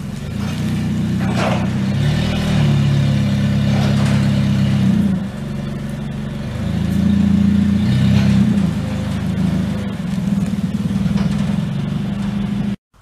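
Forklift engine running and revving up and down several times as it moves a trailer-mounted air compressor; the sound cuts off suddenly near the end.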